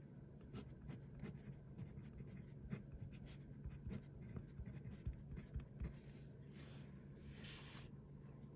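Fountain pen nib scratching on paper as words are handwritten: faint, quick strokes of the letters, then a longer scratchy stroke near the end.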